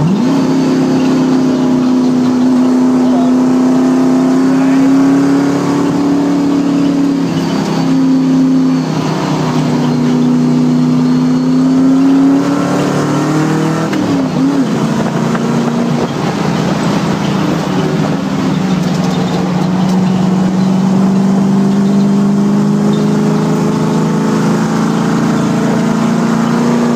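Race car's engine heard from inside the cabin, pulling hard on track with a steadily climbing note. It drops away twice as the driver lifts and shifts for corners, once about a quarter of the way in and again near the middle, then climbs again toward the end. Wind and road noise run underneath.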